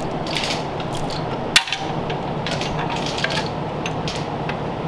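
Scattered metallic clicks and clinks of hand tools, ratchet-like, with one sharp knock about a second and a half in, over a steady shop hum.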